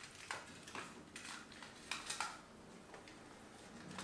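Faint handling noises: a handful of light clicks and rustles as a string of Christmas lights is wound onto an artificial Christmas tree.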